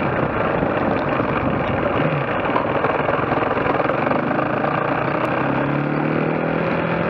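Trail motorcycle engine running while riding a dirt track, under a heavy steady rush of wind and road noise. A faint engine note shows through about five and a half seconds in and rises slightly.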